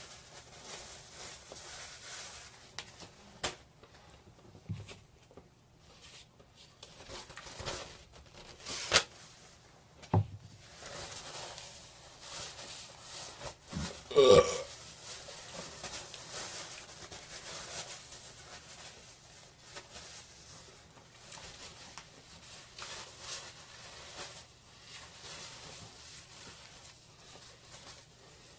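A man burps once, loudly, about halfway through, amid quiet sounds of eating roast chicken and a few sharp clicks and knocks.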